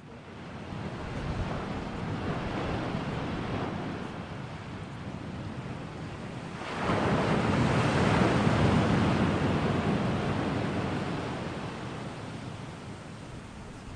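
Ocean surf: a steady wash of breaking waves, with one wave surging in sharply about seven seconds in, then slowly dying away.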